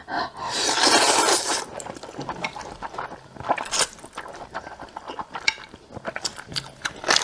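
A long, loud slurp of spicy instant noodles starting about half a second in, followed by wet chewing, lip smacks and shorter slurps, close to the microphone.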